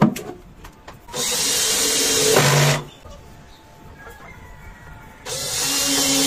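Power drill running in two bursts of a second and a half to two and a half seconds each, its pitch dropping just before each stops, typical of driving screws while fixing a wooden nesting box. A sharp knock comes right at the start.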